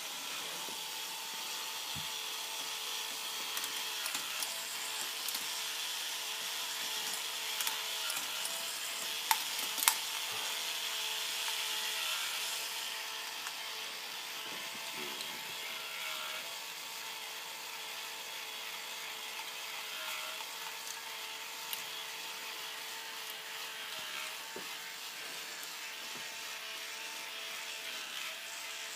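K'NEX ball machine running: small electric motors drive the ball lifts with a steady whine that dips slightly in pitch every few seconds as they take load. Plastic balls click and rattle along the tracks now and then, with a few sharper clacks about nine to ten seconds in.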